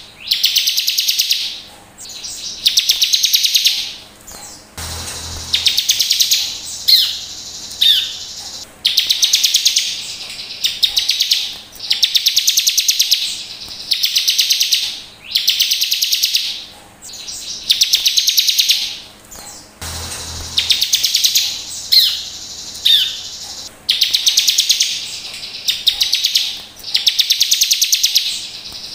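Bar-winged prinia (ciblek) song: a string of rapid, buzzy high trills, each about a second long, repeating roughly every two seconds. A few sharp falling notes come in between them twice.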